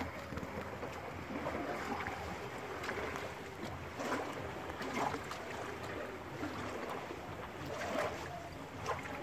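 Small waves lapping against a rocky lakeshore, a steady rush of water with a few brief splashes now and then.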